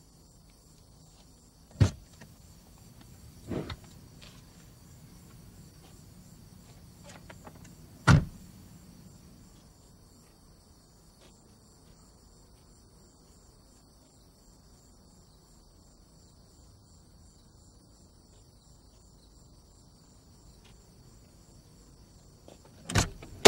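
A car door opened and shut: a few sharp knocks in the first eight seconds, the loudest about eight seconds in, and another near the end. Under them runs a steady high chirring of crickets.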